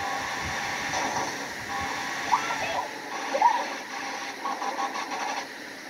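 Movie trailer soundtrack from a television, picked up in the room: a steady bed of effects and score, with a few short voice sounds about two and three seconds in.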